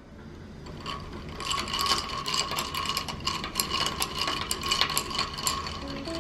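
Rapid ratcheting mechanical clicking over a steady tone, starting about a second in and stopping just before the end.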